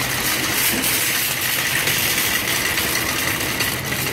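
Wire shopping cart rolling steadily across a smooth store floor, its wheels and metal basket rattling, with a thin steady high whine running under it.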